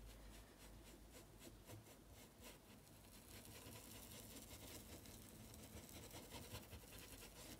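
Faint, quick swishing of a large paintbrush stroking paint onto fabric, many short strokes a second.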